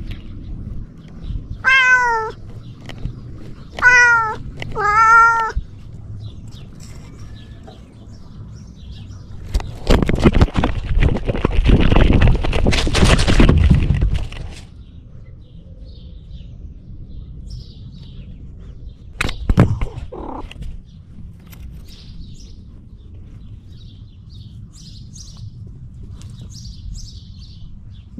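Cat meowing three times in the first few seconds, each call rising and falling in pitch. About ten seconds in comes four or five seconds of loud rough noise, then a short click, and faint bird chirps near the end.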